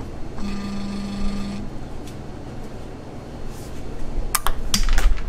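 Stepper motors of a Carbide 3D Shapeoko CNC driving the spindle during a touch-probe cycle to find the work zero: a steady whine from about half a second in to a second and a half in, then a few sharp clicks and knocks near the end.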